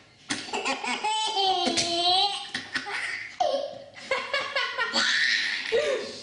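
A baby laughing hard in several long belly-laugh bursts, a reaction to someone sneezing.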